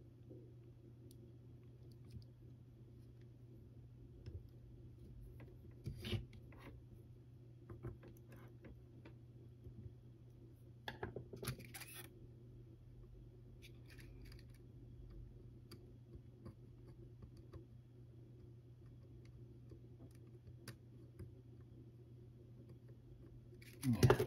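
Faint clicks and light taps of hand tools working on a battery pack during soldering, over a steady low hum, with a louder clatter near the end.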